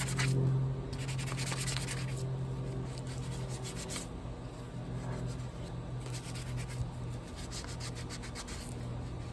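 Electric power sander running against a 3D-printed plastic helmet part, with a steady motor hum and scratchy sanding noise that swells and fades as it is pressed on and lifted.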